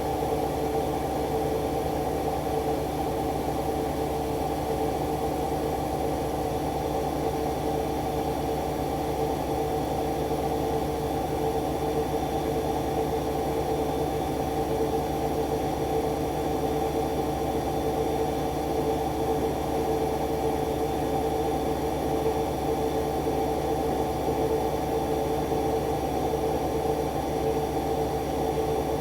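Arçelik washing machine spinning at a steady speed during an intermediate spin of the colours programme: an even motor hum with a steady whine over a low drone.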